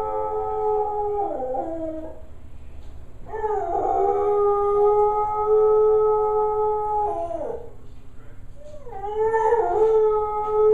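Dog howling in long, drawn-out howls: the first falls away in pitch about two seconds in, a second is held steady from about three seconds and drops off near eight seconds, and a third begins about nine seconds in.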